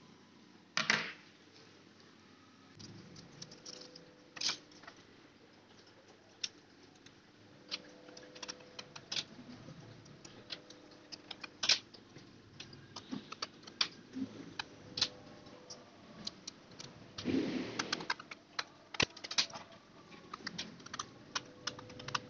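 Scattered light clicks and taps of a metal SSD caddy and a 2.5-inch SSD being handled and fitted together, with a brief scraping rustle about seventeen seconds in.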